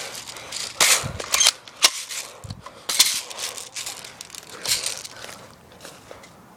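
Airsoft guns firing: several sharp pops at irregular intervals.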